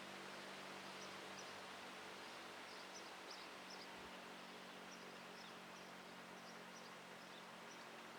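Quiet outdoor ambience: a steady hiss and a faint low hum, with small birds chirping faintly now and then.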